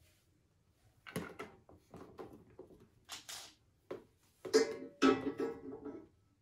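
Metal scooter frame and parts being handled during reassembly: a series of knocks and clatters, the loudest a short ringing clank of metal about four and a half seconds in.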